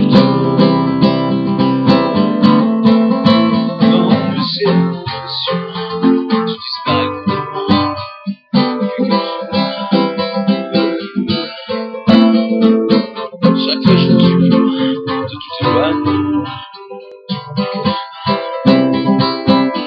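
Acoustic guitar strummed in a steady rhythm, playing chords, with a brief break about eight seconds in.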